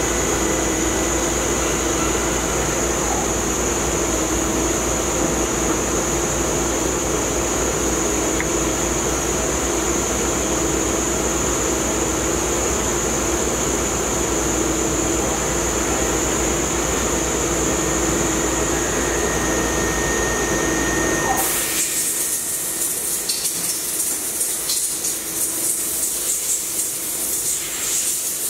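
Laser engraving machine marking a titanium-coated steel dart barrel: a steady machine hum with a high whine and a lower held tone. About 21 seconds in the sound changes abruptly to a high hiss with fine crackling.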